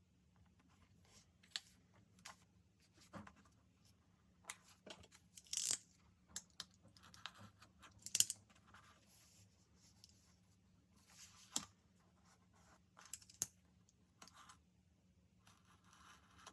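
Paper and stickers handled while decorating a diary: irregular soft rustling, crinkling and light tapping, with a few louder crinkles.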